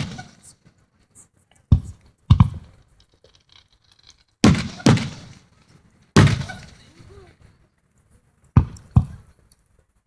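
Aerial fireworks shells bursting overhead: eight sharp booms, mostly in pairs about half a second apart, each trailing off in a rumbling echo.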